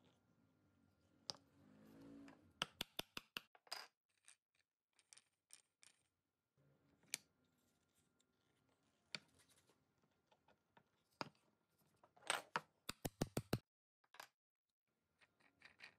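Wooden toy parts being handled and fitted: light clicks and knocks of hardwood wheels and gears on dowel axles, including two quick runs of rapid clicks, about three seconds in and again near the end.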